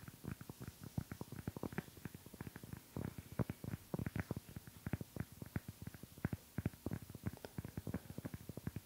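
Fingers tapping on a phone in its case, held right up to the microphone: rapid, irregular taps, several a second.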